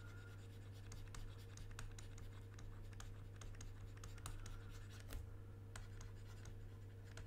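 Stylus nib scratching and tapping on a graphics tablet in many short, quick strokes, going over the same area again and again, faint, over a steady low hum.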